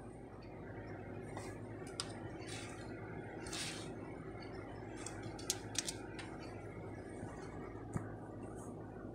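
Laptop touchpad buttons clicking a few times, with three quick clicks about five and a half seconds in and single clicks near two and eight seconds, over a steady low hum and a brief rustle.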